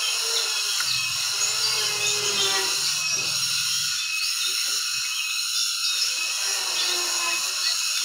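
A steady high-pitched buzzing drone, made of several whining tones layered together.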